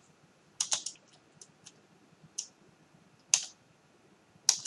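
Sharp, isolated clicks of computer controls being pressed while stepping through on-screen menus: about seven, spread irregularly, with a quick double click a little over half a second in.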